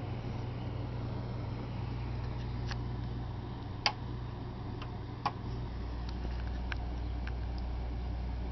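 Handling noise: a few light, sharp clicks and taps, the two loudest about four and five seconds in, over a steady low hum that drops lower about halfway through.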